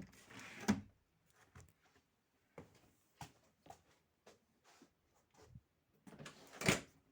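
Scattered light clicks and knocks of things being handled, with a short noisy burst about half a second in and a louder one near the end.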